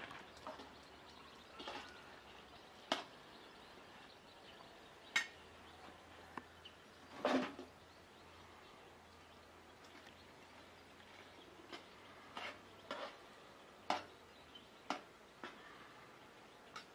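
A quiet background broken by about a dozen scattered short, sharp clicks. One longer, louder click-like sound comes about seven seconds in.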